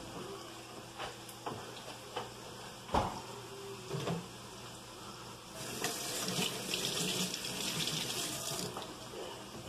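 A few light knocks and clatters of kitchen handling, the loudest about three seconds in, then a steady hiss that starts about halfway through and stops about three seconds later.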